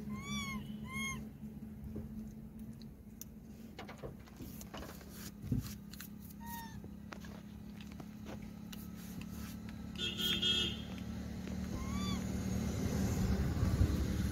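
Rhesus macaque giving short rising-and-falling coo calls: two quick ones at the start and single ones later, over a steady low hum. Over the last few seconds a motorcycle approaches and passes, growing louder.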